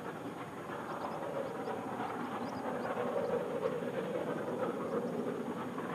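Rebuilt LMS Royal Scot class three-cylinder 4-6-0 No. 46115 Scots Guardsman working hard on a steep climb, its exhaust running on in a steady, dense noise.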